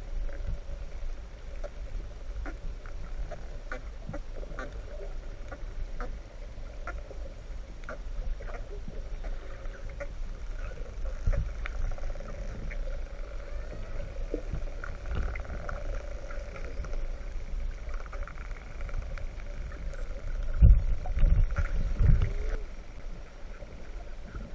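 Underwater sound of the sea: a steady low rumble of moving water with scattered sharp clicks and faint squeaky dolphin whistles, and a louder surge of rumbling near the end.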